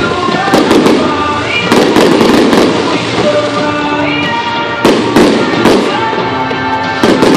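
Aerial firework shells bursting in sharp bangs, several in quick succession in the first second or two, then more in clusters every couple of seconds, over steady music.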